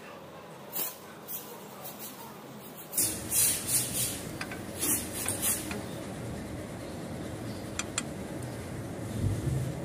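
Light, irregular metallic clinks and knocks of a socket tool and small parts being handled. They come in a cluster a few seconds in, with two sharp ticks later and a low thump near the end.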